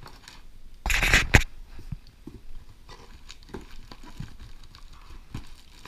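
Packaging being handled in a cardboard box: a brief loud scrape about a second in that ends in a sharp knock, then light rustling and tapping of the plastic air-column cushioning.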